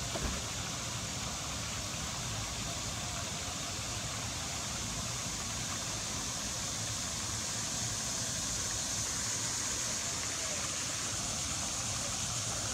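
Steady splashing of a pond's aerator fountain spray, with a steady high hiss over it.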